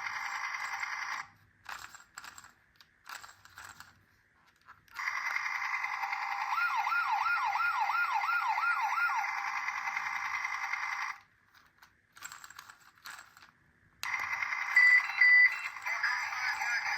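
Electronic siren sounds from battery-powered toy ambulances and fire trucks, thin with no low end, cutting out twice with scattered clicks and rattles in the gaps. In the middle stretch a fast warble sweeps up and down about seven times over the steady tones, and two short loud beeps near the end are the loudest sounds.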